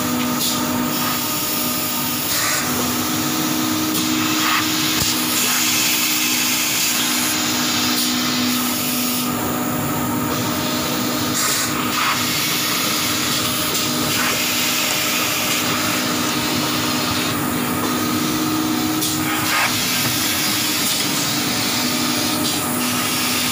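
Paper-pulp egg tray moulding machine running: a steady hum under a loud, continuous hiss of air.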